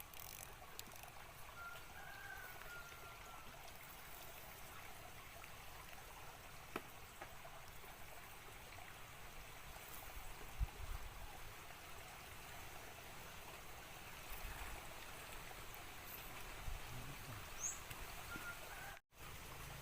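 Faint steady running water of a small creek, with a few short bird chirps and a couple of soft knocks; the sound cuts out briefly near the end.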